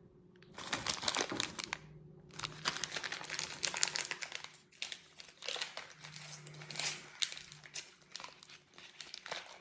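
Plastic candy wrapper of a pack of peanut butter M&M's crinkling in irregular crackles as it is handled and opened, with a short lull about two seconds in.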